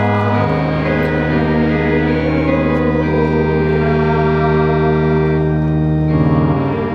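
Organ music: slow, held chords, the harmony changing about half a second in and again near the end.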